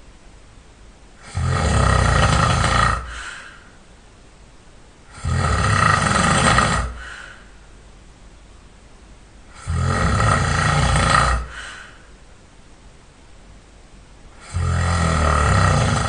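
A person snoring loud and hard: four heavy snores, each under two seconds long, coming about every four to five seconds with quiet gaps between them.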